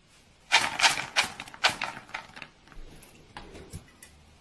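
Dry dog kibble pouring from a plastic scoop into a clear bowl: a quick, dense run of rattling clicks about half a second in that thins out to scattered ticks.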